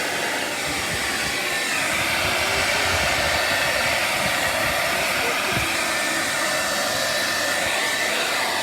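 Handheld hair dryer on its hot setting, blowing steadily with a faint whine in its noise, its pitch shifting slightly a couple of seconds in.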